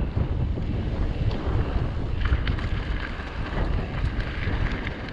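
Wind rumbling and buffeting on a GoPro action camera's microphone while riding a mountain bike, with scattered small clicks and rattles.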